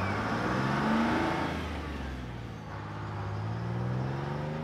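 Engine of a small box truck accelerating. Its pitch rises, drops at a gear change about a second and a half in, then climbs again.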